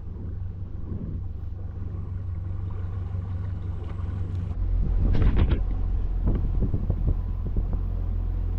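Boat motor running steadily with a low hum; it grows louder about halfway through.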